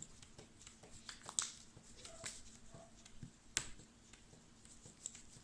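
Hands being rubbed together with a grainy homemade hand scrub: faint scratchy rubbing with scattered small clicks, and a sharper click about three and a half seconds in.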